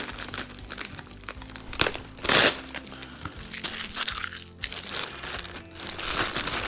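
Clear plastic bag crinkling and rustling as a wiring harness is worked out of it, loudest in one burst a little over two seconds in. Faint background music under it.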